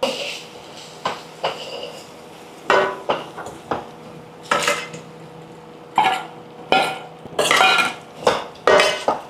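A cooking spoon clinking and scraping against a pan in irregular strokes, some ringing briefly, as spice powders are stirred into fried bitter gourd.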